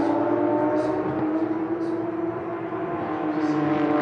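Porsche 911 GT3 Cup race cars' flat-six engines running hard on track at a steady engine note. The sound fades a little around the middle and swells again near the end.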